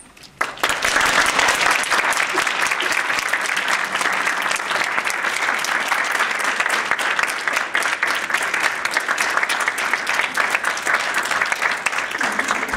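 Audience applauding: clapping breaks out suddenly about half a second in and carries on steadily.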